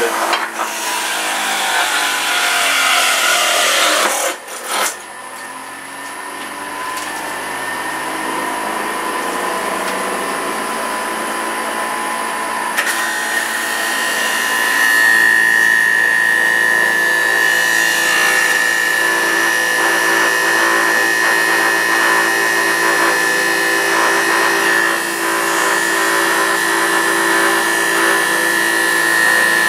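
Electric juicer's motor running with a steady whine while produce is pressed down its feed chute. The sound drops briefly about four seconds in, and a strong high whine sets in about fifteen seconds in.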